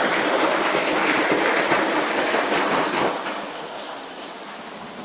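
Waterfall rushing, a loud, steady roar of falling water that drops to a softer rush about three seconds in.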